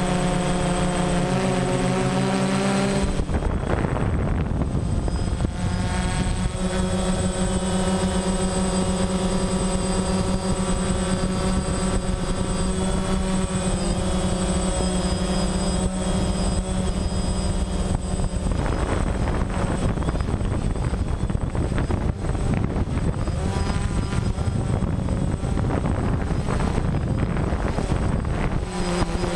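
DJI Phantom quadcopter's propellers buzzing in flight, a stack of steady tones that shift in pitch as the motors change speed. Wind noise rushes over the microphone, swelling a few seconds in and again about two-thirds of the way through.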